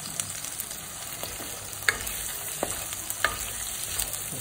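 Sliced onions, green chillies and curry leaves frying with a steady sizzle in a clay pot, stirred with a wooden spatula, with a few sharp clicks as the spatula knocks the pot.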